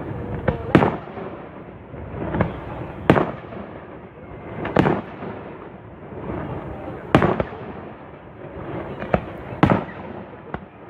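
Aerial firework display: sharp shell bursts banging every second or so at uneven intervals, the loudest about three seconds in and near the end, over a continuous rumble of further explosions between them.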